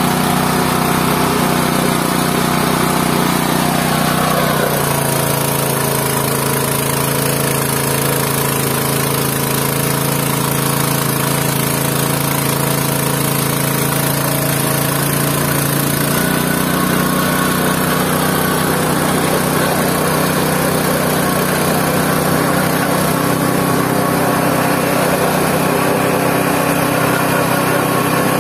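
GT-14 organic-waste pulverizer running steadily on its small engine. The engine note drops about four seconds in and picks up again around sixteen seconds.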